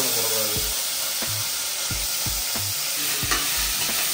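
Hot groundnut oil sizzling loudly in a pan, starting suddenly as ingredients go into it, with stirring and short knocks of a utensil in the pan.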